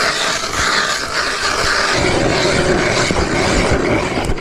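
Hand ice auger being cranked down through ice: a steady grinding scrape of the blades shaving ice, getting heavier about halfway through.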